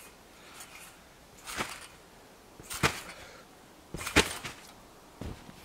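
Trampoline bouncing: four landings on the mat and springs, each a short sharp sound, evenly spaced about a second and a quarter apart, the third the loudest.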